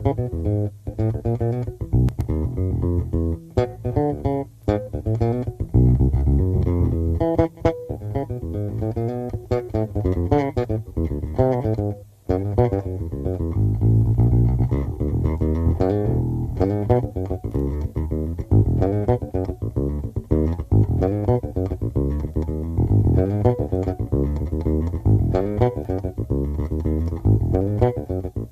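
Electric bass guitar played in a fast jam, with quick runs of plucked notes over strong low notes. There is a brief break about twelve seconds in.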